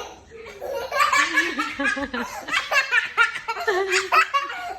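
A young child's belly laughter in quick repeated bursts, set off by daddy's sneezing.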